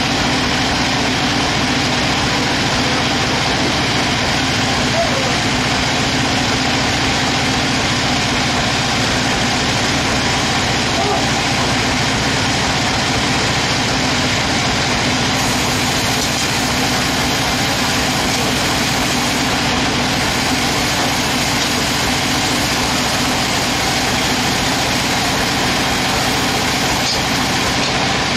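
Large log band saw mill running steadily at idle, its drive engine and band turning with an even, unbroken noise while no log is being cut.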